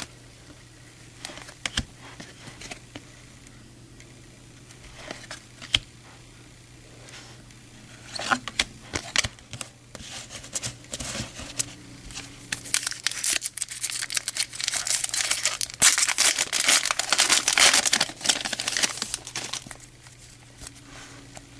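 A few light clicks, then a foil trading-card pack wrapper being torn open and crinkled. The crinkling comes in about a third of the way through, is loudest past the middle and fades near the end.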